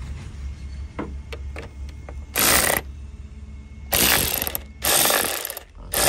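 Socket ratchet wrench clicking in quick runs as a 10 mm bolt is turned: a few single clicks about a second in, then three loud runs of rapid ratcheting, each lasting under a second.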